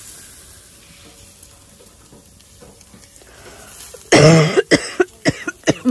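A woman coughing: a run of about eight short, sharp coughs over less than two seconds, starting about four seconds in after a faint steady hiss. It is a lingering cough, still with her as she recovers from an illness.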